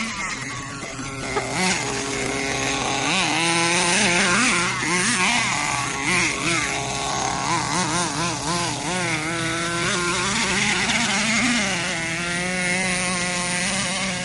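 Small nitro engine of an RC monster truck running at high revs, its buzzing pitch rising and falling again and again as the throttle is worked, then holding steadier near the end.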